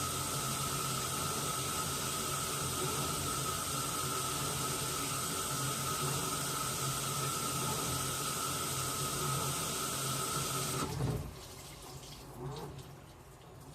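Washing machine filling with water: a steady rush of incoming water with a thin whine and a low hum, cutting off suddenly about eleven seconds in as the fill stops, leaving faint water sounds.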